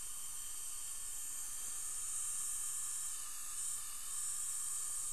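A steady high-pitched hiss with no distinct events, the background noise of the dental operatory; the brush working in the screw channel is not heard separately.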